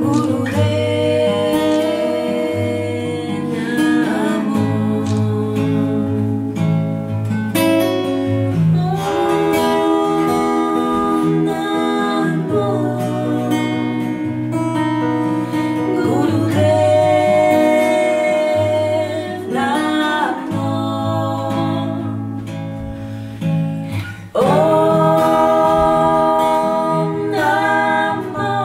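A slow mantra song: a woman's voice singing long, held notes that slide between pitches, over acoustic guitar.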